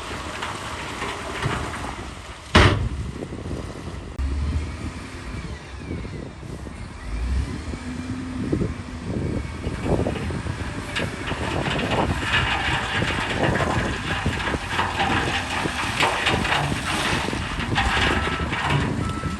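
Heavy earthmoving machinery at work: engine noise under repeated metallic clanks and knocks, with one loud bang about two and a half seconds in and denser clattering from about eleven seconds on.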